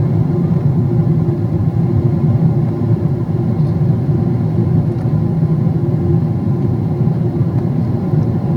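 Steady low drone inside the cabin of a Boeing 777-300ER in flight: the GE90 turbofans and the rush of air along the fuselage, heard from a window seat.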